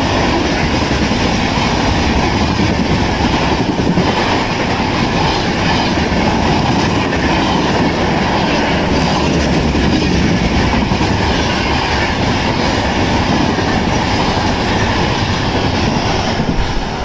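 Shatabdi Express passenger train rushing past at about 120 km/h: a loud, steady rush of coaches and wheels running on the rails.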